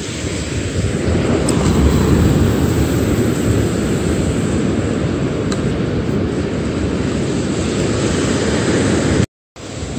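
Wind buffeting the microphone, a steady low rushing with the wash of surf beneath it; it drops out for a moment near the end.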